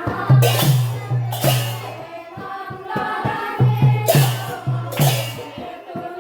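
Sylheti dhamail folk song: a group of voices singing together over a steady rhythm of low drum beats and sharp percussive hits.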